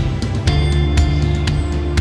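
Background music with a steady beat and a deep bass line.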